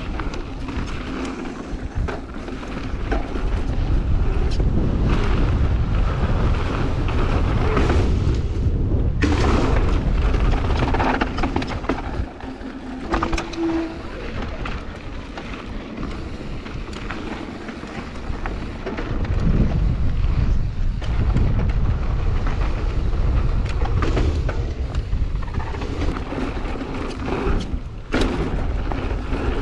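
Mountain bike descending a dirt trail: a loud rush of wind on the camera microphone under the rattle of the bike and its tyres running over rough gravel. Short knocks come over bumps, and the wind noise swells as the speed picks up about four seconds in and again near twenty seconds in.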